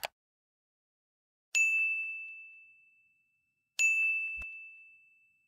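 A brief click, then two identical bell dings about two seconds apart, each a single clear tone that rings out and fades over about a second and a half: a notification-bell sound effect.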